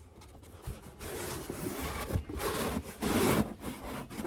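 Rubbing and scraping as an insert is worked down into the bottom of a fabric storage drawer. It starts about a second in, in irregular strokes.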